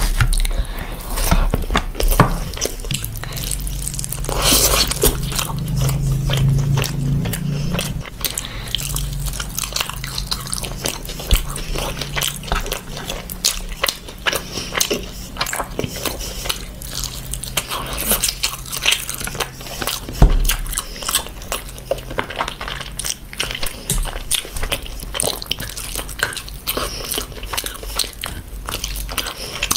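Close-miked eating: a person chewing and biting mutton and biryani rice, with many small wet clicks and smacks throughout.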